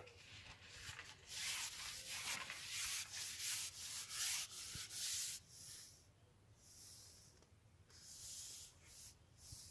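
Carbon fishing pole sliding through the hands and against a shirt sleeve as it is pushed out, a run of hissy rubbing strokes followed by a few shorter separate ones.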